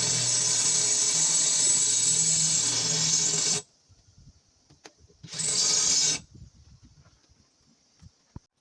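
Electric drill boring through thin sheet steel, which is really hard to drill through: it runs steadily for about three and a half seconds and cuts off, then runs again briefly about a second and a half later, followed by a few faint clicks.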